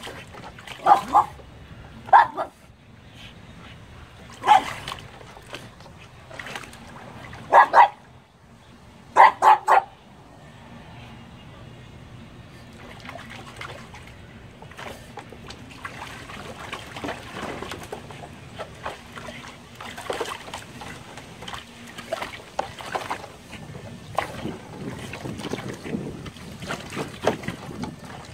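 Small dog barking in short loud barks, about nine in the first ten seconds with some in quick pairs, then water splashing and sloshing as the dog paws and moves about in a plastic tub of water.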